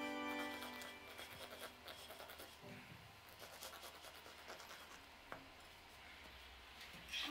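A knife sawing horizontally through a thick baked pancake: faint, irregular scratchy rasping strokes as the blade cuts the crust and crumb, with one short tap a little past the middle.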